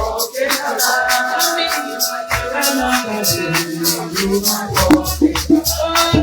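Upbeat music with a fast, high percussion rhythm over melodic lines; the bass drops out just after the start and comes back about five seconds in.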